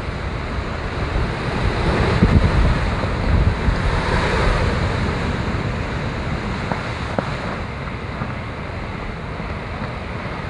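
Rough sea breaking against a rocky breakwater and washing over it, a continuous surf rush with a swell of spray hiss about four seconds in. Gusty wind buffets the microphone, heaviest in the first few seconds.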